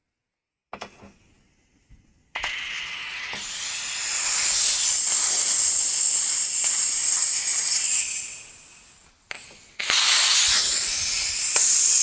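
Compressed air hissing out of the opened drain valve on the bottom of a Porter-Cable pancake compressor's tank as the tank is bled down. After a few faint clicks the hiss starts about two seconds in and swells to a loud high hiss. It fades and cuts out about nine seconds in, then comes back loud a second later.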